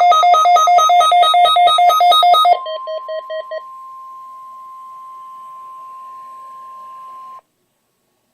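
A weather radio receiver's electronic alarm beeps rapidly on two alternating pitches, then drops to quieter beeps about two and a half seconds in that stop a second later. Under it runs the steady single-pitch NOAA Weather Radio warning alarm tone, which cuts off suddenly near the end.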